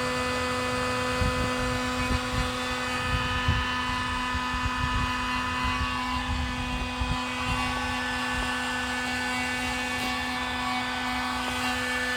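Electric heat gun running with a steady motor hum, shrinking heat-shrink tubing over freshly spliced harness wires, with light handling knocks underneath.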